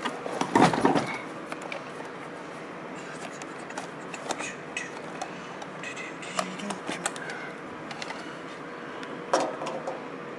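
Hand tools being handled while wiring a motor's junction box: scattered clicks and small metal rattles, with a louder clatter about half a second in and another near the end. A faint steady hum runs underneath.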